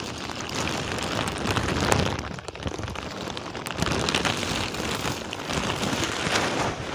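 Rain pattering on a plastic rain cover, with crackling rustles of the plastic as it is handled.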